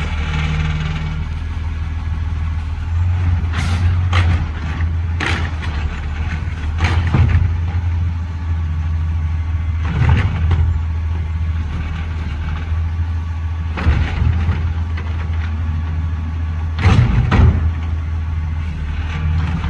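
Garbage truck engine running with a steady low hum, with short sharp noises every few seconds, the loudest pair near the end.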